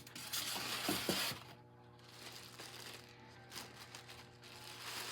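Steady background music with sustained notes. About half a second in, a second-long burst of rustling handling noise, then a few faint clicks.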